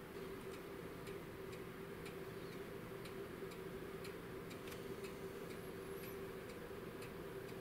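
Pendulum clock's escapement ticking, an alternating tick and tock about twice a second, with a faint steady hum underneath.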